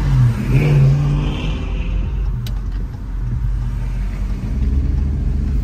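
Car engine and road noise heard from inside a moving car's cabin, the engine rising in pitch as it accelerates during the first second or so, then settling into a steady low rumble.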